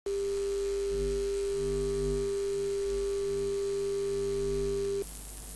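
Synthesized electronic drone: one steady held tone over a low hum, with lower tones that swell and fade, cutting off suddenly about five seconds in and leaving faint hiss.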